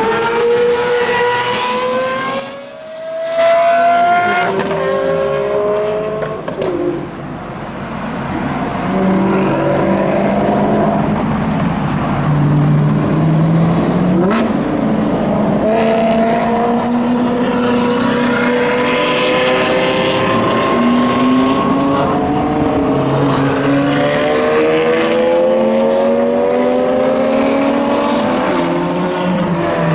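Several supercar engines accelerating one after another out of a pit lane, each note climbing in pitch through the gears, with brief drops between shifts. Among them are a Ford GT and a Porsche Boxster pulling away.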